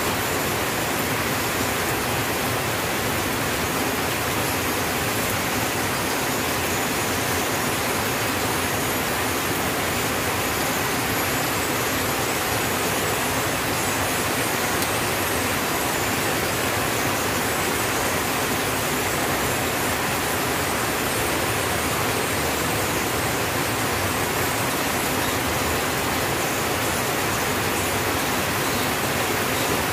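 Steady rain falling on a tin roof, an even hiss that holds at one level throughout.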